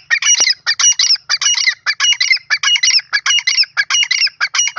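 Grey francolin (teetar) calling: a fast, loud run of harsh repeated notes in groups of three, about four notes a second, stopping abruptly near the end.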